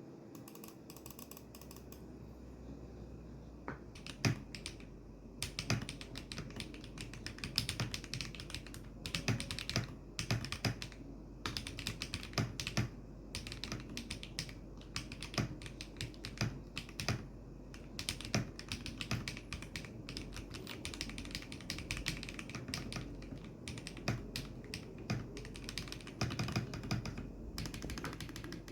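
Typing on an Akko MU01 mechanical keyboard with HMX Xinhai switches in a wooden case with no foam inside: a quiet start, then a fast, irregular run of keystrokes from about four seconds in, with some strokes louder than the rest. The uploader calls the sound thocky and clean.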